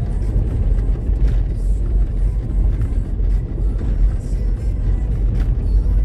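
Steady low road rumble of a car driven over a rough, broken and patched road surface, heard inside the cabin, with scattered small knocks from the wheels and suspension.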